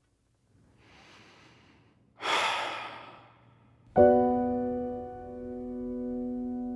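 A person breathing: a faint breath, then a louder, deep breath about two seconds in. About four seconds in, a sustained piano chord is struck and rings on.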